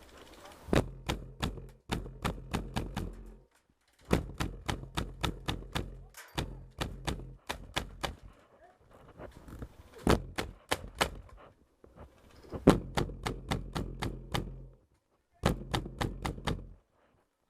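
HPA-powered airsoft rifle firing in quick strings of shots, about four or five a second, with a few short breaks between strings.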